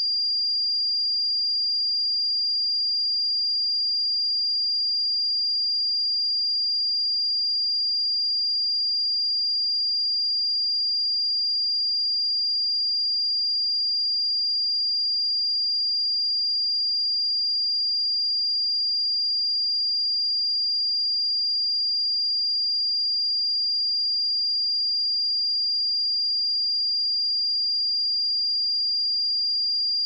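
A pure 4792 Hz sine-wave test tone, one steady high-pitched note at a constant level.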